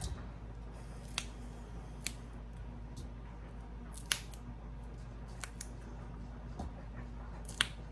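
Fresh green beans being snapped by hand, about six crisp snaps at irregular intervals as the ends are broken off, the loudest about four seconds in and near the end, over a low steady hum.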